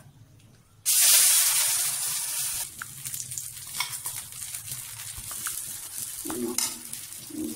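Dosa batter sizzling on a hot pan. The sizzle starts suddenly about a second in, is loudest for the first couple of seconds, then settles to a lower hiss with small crackles.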